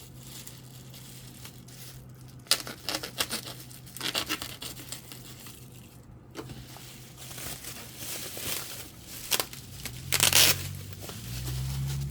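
Packaging being torn and crinkled by hand as a batch of boxed diecast cars is unwrapped: several short bursts of rustling, the loudest near the end, over a faint steady low hum.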